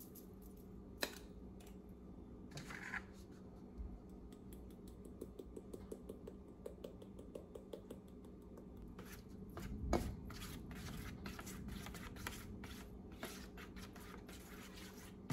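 Faint handling sounds: a few small clicks as a little jar of edible gold luster dust is opened and tapped over the pan, then, from about nine seconds in, a spoon scraping and clinking in an aluminium foil pan as the sauce is stirred, with one louder knock about ten seconds in. A steady low hum runs underneath.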